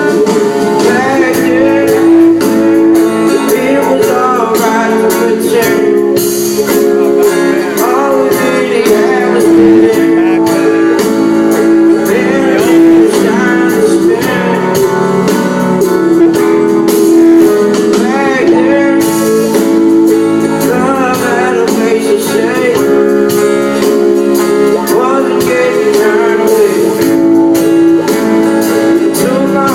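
Live band music: a male voice singing over guitar and a full band.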